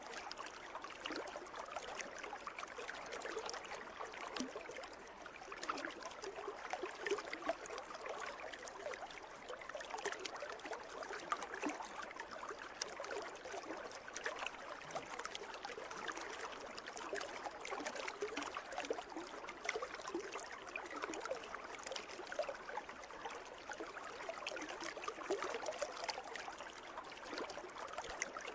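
Water in a pool, a steady trickling and splashing made of many small drips and splashes with no pauses.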